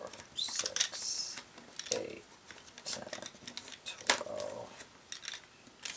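Loose wooden Prismacolor pencils clicking and clattering against one another and the tabletop as they are gathered and sorted by hand, with a brief rustle of pencils sliding together about half a second in.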